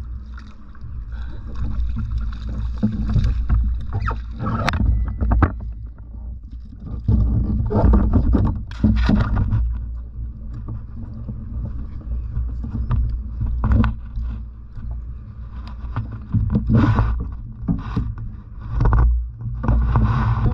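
On-water sounds from a fishing kayak at sea: a steady low rumble, with irregular knocks, scrapes and splashy bursts of water and gear against the hull, the loudest about eight seconds in and again near the end.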